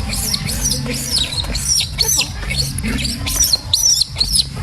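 A small animal squeaking: short, high-pitched squeaks, about three a second, over a steady low hum.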